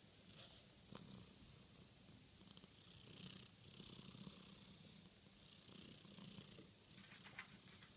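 Domestic cat purring faintly, a low rhythmic rumble, with a few faint clicks about a second in and again near the end.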